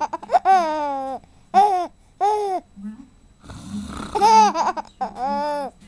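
A baby laughing in short, high-pitched, rising-and-falling squeals, set off by a person's fake snore a little over halfway through.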